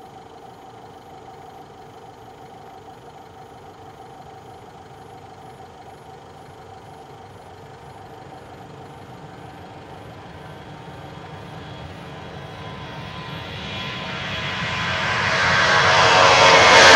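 Four CFM56-5C turbofans of an Airbus A340-300 at takeoff power on the takeoff roll: a distant steady drone with a hum in it, growing much louder over the last few seconds as the airliner lifts off and comes toward the microphone.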